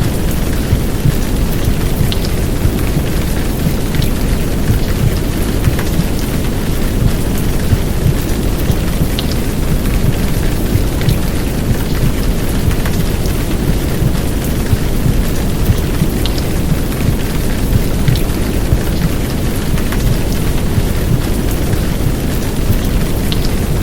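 Heavy downpour rain with a deep, steady low rumble of womb sound beneath it, and scattered drop ticks on top. A continuous, even wash of noise.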